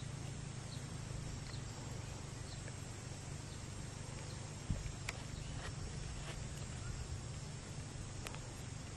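Quiet outdoor background: a steady low rumble with a few faint high chirps, scattered faint clicks and a soft thump about halfway through.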